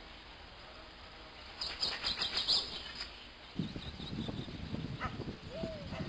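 Wind rumbling on the microphone in open country from just past halfway. Before it come a few quick high bird chirps, and near the end a short rising-then-falling call.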